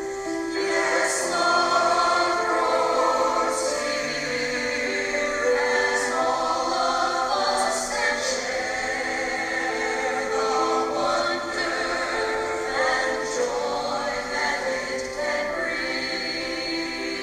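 Church anthem: a choir singing sustained lines over instrumental accompaniment, with the voices coming in about half a second in.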